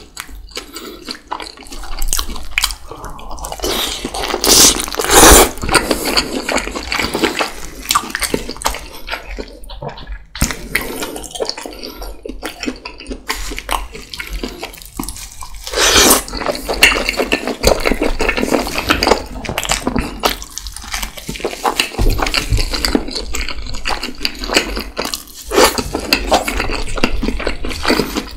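Close-miked wet chewing and slurping of juicy steamed lamb dumplings eaten by hand, with smacking lips and squelching juice. The loudest wet bursts come about five seconds in and again about sixteen seconds in.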